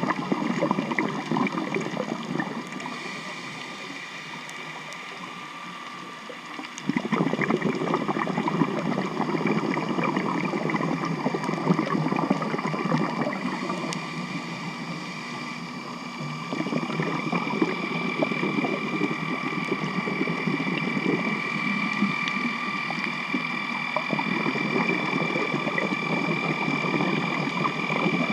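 Motorboat traffic heard underwater: a steady engine and propeller whine with a noisy rushing over it. The rushing fades and then comes back suddenly about seven, sixteen and twenty-four seconds in.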